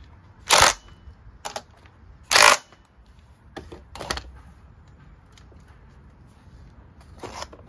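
Cordless impact driver run in two short bursts on the nut at the gear end of a lawn-mower starter motor, followed by light metallic clicks and knocks as the starter is handled back into place.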